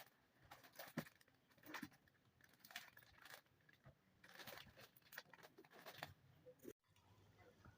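Faint rustling and crinkling of packaging being handled, with scattered soft taps and clicks. The sound drops out abruptly for a moment near the end.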